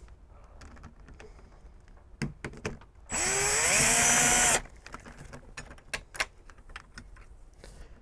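Cordless drill driver running for about a second and a half, its whine rising as the motor spins up and then holding steady. Scattered light clicks and taps before and after.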